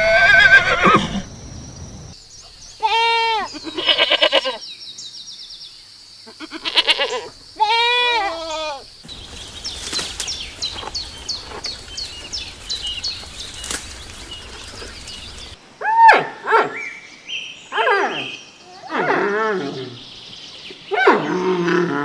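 Goats bleating in a series of separate wavering calls, with a stretch of quick clicks and ticks in the middle.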